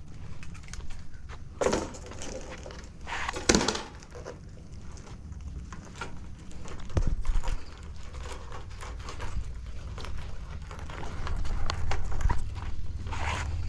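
Knocks and scrapes from handling a live blue crab in a ring crab net, the two loudest about two and three and a half seconds in, over a steady low rumble.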